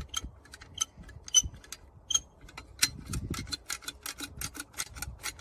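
Metal caulking gun loaded with a tube of RTV silicone, clicking as it is worked: a few scattered clicks, then a quick, even run of about five clicks a second from about halfway.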